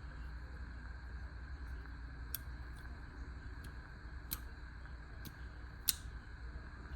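Pocket knife being worked by hand: a handful of sharp, separate clicks a second or two apart, as the blade on its loosened pivot is flicked open and closed.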